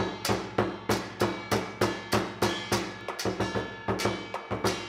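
Chinese lion dance percussion: a large barrel drum beaten with sticks, together with clashing hand cymbals and a gong, in a fast, steady beat of about four to five strikes a second.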